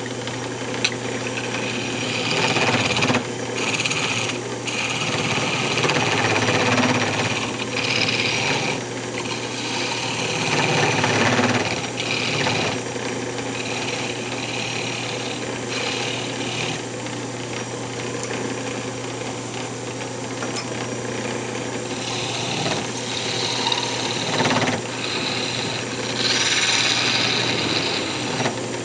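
Wood lathe running with a steady motor hum. A parting tool cuts into the spinning redwood tenon in repeated bursts of scraping as the tenon is brought down to size.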